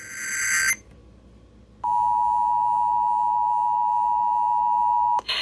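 NOAA Weather Radio alert: the tail of a SAME digital header burst, a harsh warbling data tone, cuts off under a second in. After about a second's pause, the steady 1050 Hz warning alarm tone holds for about three and a half seconds, signalling that a warning is about to be read.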